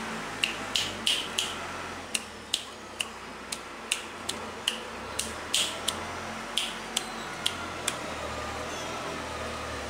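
A run of about seventeen sharp, irregular clicks from a hand, roughly two a second, stopping about eight seconds in, over a steady low hum.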